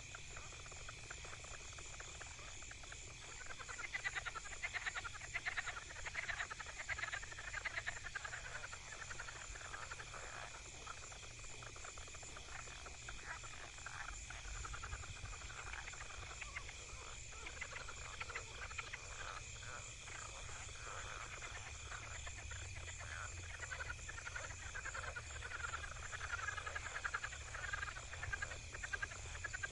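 A chorus of frogs calling in rapid pulsing trills, swelling into louder bouts about four seconds in and again near the end, over a steady high-pitched drone.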